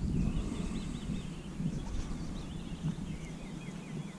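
Small songbirds singing outdoors, in runs of quick repeated chirps, over a steady low rumble.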